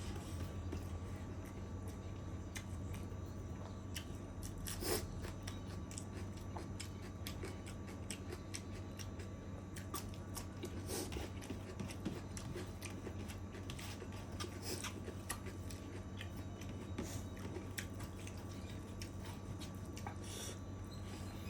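A person chewing and biting into chicken curry with rice, with wet mouth sounds and scattered small clicks, the strongest about five seconds in. A steady low hum runs underneath.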